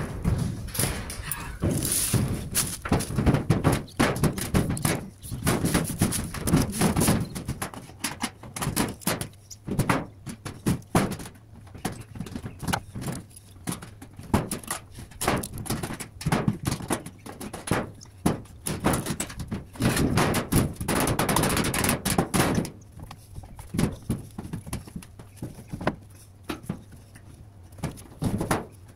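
Sheet-steel valley gutter being handled and bent up by hand: a busy run of metallic knocks, rattles and scrapes, thinning to scattered clicks for the last few seconds.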